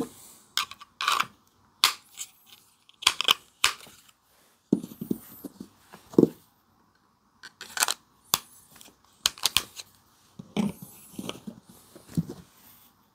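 Fixed-blade knives and their Kydex sheaths being handled: a run of sharp clicks and snaps, with a few duller knocks in the middle and near the end.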